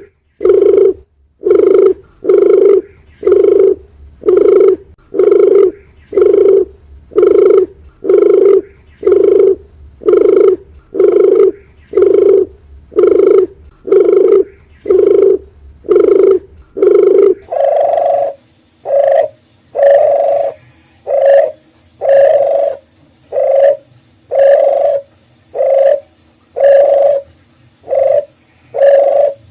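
Doves cooing: a long run of short, even, low coo notes, about one and a half a second. Partway through, a different recording takes over with higher, slightly slower coos over a faint steady high whine.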